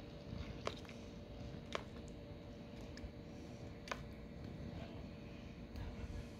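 A peninsula cooter snapping at and biting dead darkling beetles in a shallow basin of water: about six sharp, irregular clicks as its beak strikes. A faint steady hum runs underneath.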